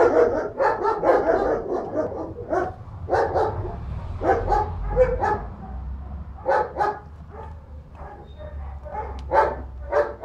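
Dogs barking repeatedly, thick and overlapping in the first two seconds, then in short runs of two or three barks.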